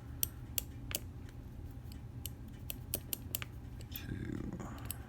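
Small, sharp metallic clicks and ticks at irregular intervals, about a dozen, from padlock parts being handled: the core being worked out of the lock body with a follower and its pins coming loose.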